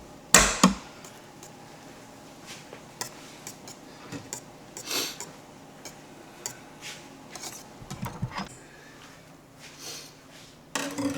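Wire whisk clinking and scraping against a mixing bowl as whipped egg whites are whisked into an eggnog base, with two sharp knocks about half a second in.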